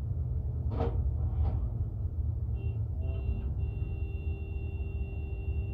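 Heavy engine running with a steady low rumble. Two short knocks come about a second in. From about three seconds a steady high-pitched whine joins in and holds.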